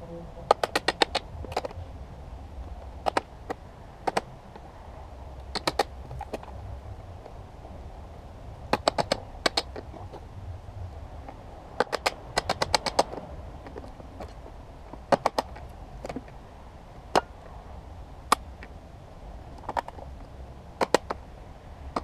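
Hammer striking the end of a long screwdriver wedged into the plastic lid of a lead-acid car battery, to crack the top off the case. Sharp metal-on-metal blows come in quick runs of several taps, with single blows in between, every second or two.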